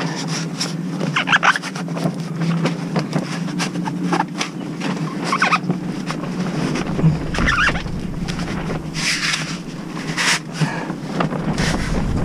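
Woven plastic tarpaulin rustling and crinkling in short bursts as hands press foam pipe lagging onto a timber tent frame, over a steady low hum.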